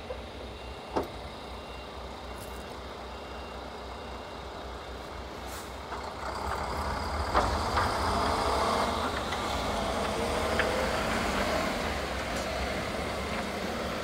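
Snowplow dump truck's diesel engine running. About six seconds in it grows louder, with a broad rushing noise, as the truck pulls away plowing snow with its front blade.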